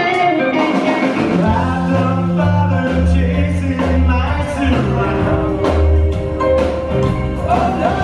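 Live rockabilly band playing: a hollow-body electric guitar line winds down at the start, then the upright bass and drums come back in heavily about a second and a half in and carry on in a steady groove.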